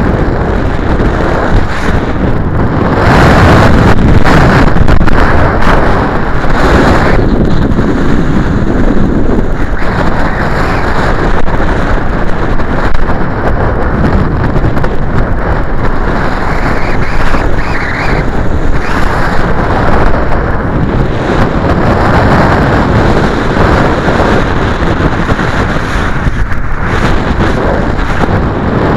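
Strong sea wind buffeting the microphone: a loud, uneven rumble that swells and eases with the gusts, strongest about three to seven seconds in.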